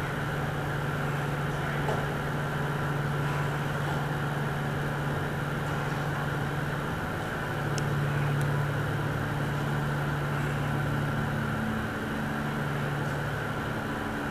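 Steady low drone of a car ferry's machinery, heard on the enclosed car deck, with a faint higher hum above it. The low hum shifts slightly in pitch about eight seconds in and again near the end.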